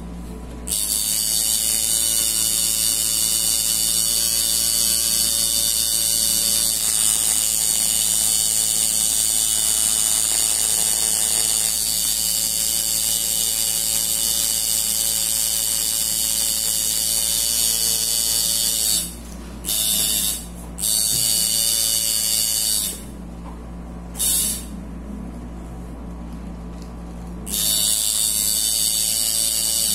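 Coil tattoo machine buzzing steadily as it runs into artificial practice skin. It stops and restarts several times in the last third, with a pause of about three seconds near the end.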